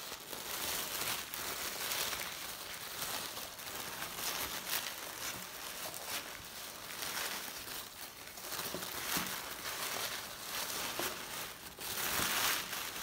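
Thin black packaging wrapping being crinkled and pulled open by hand: a continuous rustle of small crackles, loudest about a second before the end.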